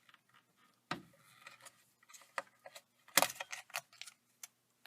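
Light clicks and clatter of small steering-column parts being handled and taken off, with a sharp knock about a second in and the loudest clatter about three seconds in.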